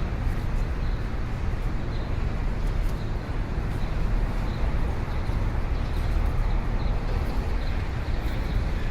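City street ambience: a steady low rumble of road traffic under a dense wash of noise, with faint short high ticks recurring through it.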